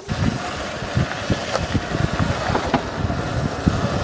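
Wind buffeting the microphone of a camera on an electric bike in motion: a dense rushing noise with irregular low thumps from the ride.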